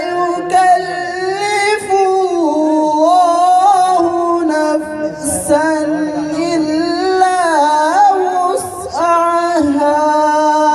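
A man reciting the Quran in the melodic tilawat style, amplified through a microphone. He holds long, wavering notes with ornamented turns between them, and the phrase ends near the end.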